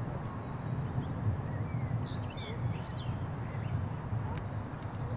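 Songbirds chirping in short, quick phrases, clustered about two seconds in, over a steady low rumble.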